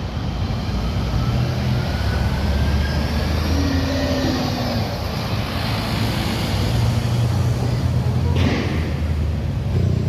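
Heavy road traffic with large buses going by: a steady deep diesel engine rumble with tyre and road noise, and a brief rush of noise about eight seconds in as a vehicle passes close.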